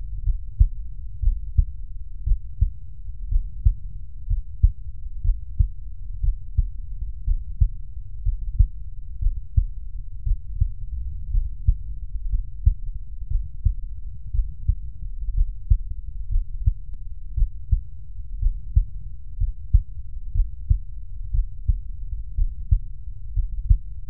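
Normal heart sounds, the first and second sounds (lub-dub), picked up by an electronic stethoscope over the tricuspid area at the lower end of the sternum. They come as a low, regular beat.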